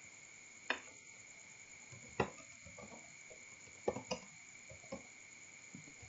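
Computer keyboard keystrokes: a handful of short, irregular key clicks while text is typed, over a faint steady high-pitched hum.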